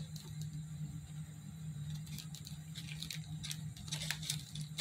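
Faint taps, clicks and rustles of lightweight foam craft pieces being handled and set in place, more frequent in the second half, over a steady low hum.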